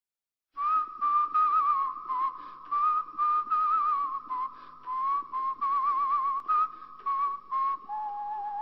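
A person whistling a slow melody in short phrases, the pitch wavering in places, ending on a lower held note.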